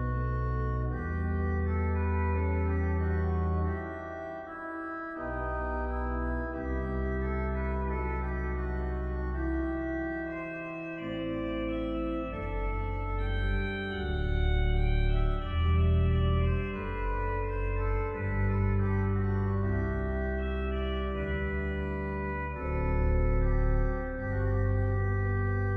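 Digital organ played on two manuals and pedalboard: sustained chords over deep pedal bass notes that change every second or two, swelling louder a couple of times.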